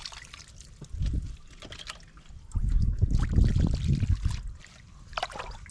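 Shallow water sloshing and splashing as a woven bamboo fishing basket is dipped and swept through it, heaviest from about two and a half to four seconds in.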